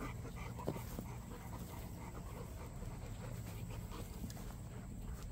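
Large mastiff-type dogs panting steadily with their mouths open, with one brief knock about a second in.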